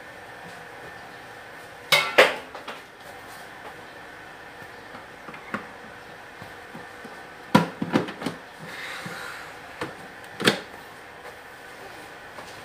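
A kettle and a thermos airpot being handled: two sharp clanks about two seconds in, a cluster of knocks and clicks past the middle, and one more knock near the end.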